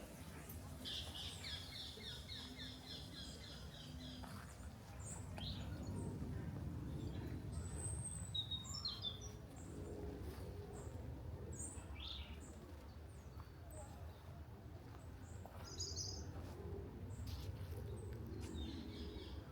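Small songbirds chirping, opening with a fast trill of repeated high notes that lasts about three seconds, followed by scattered short chirps, over a steady low background rumble.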